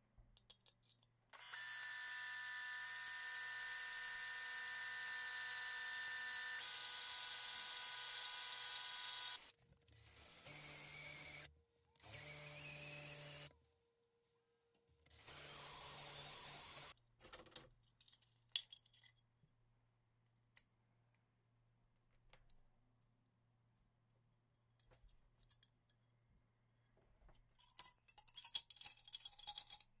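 A small electric power tool runs with a steady whine for about eight seconds, getting louder partway through, then runs in three shorter bursts. Light clicks follow, and near the end small metal parts rattle and clink.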